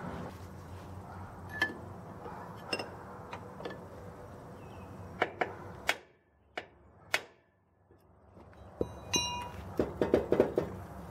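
Hammer blows on a wooden stick held against a lawn tractor engine's flywheel, trying to knock the flywheel loose from the crankshaft. A dozen or so sharp knocks come singly and in quick clusters, and one near the end leaves a brief metallic ring.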